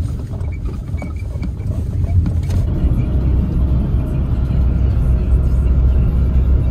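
Low, steady rumble of a moving vehicle heard from inside the cabin, with faint rattles; about three seconds in the upper hiss drops away and the low drone becomes steadier.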